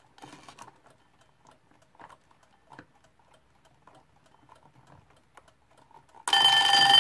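Winding key of a Westclox Baby Ben Style 8 alarm clock turned by hand, its ratchet giving faint, irregular clicks. About six seconds in, an alarm clock's bell suddenly starts ringing loudly and steadily.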